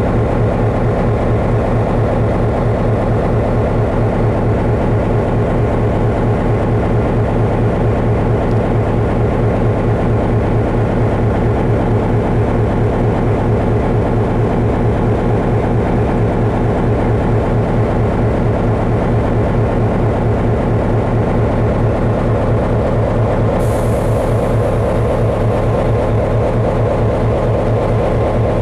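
Train running noise: a loud, steady low drone with a fast pulse underneath. About 24 s in, a high hiss starts suddenly and fades away over the next few seconds.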